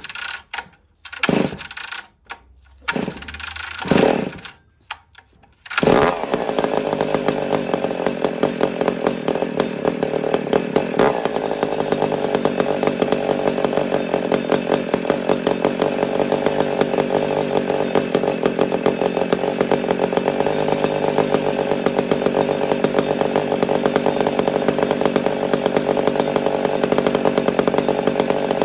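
Ported McCulloch Pro Mac 850 two-stroke chainsaw cold-started on choke with the decompression button: several hard pulls of the starter rope on a saw with high compression. About six seconds in it fires and keeps running steadily.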